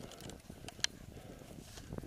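Mountain bike rolling over a dirt forest trail: a rumble of tyres and a steady clatter of small, irregular knocks from the bike rattling over the bumps, with one sharper click a little under a second in.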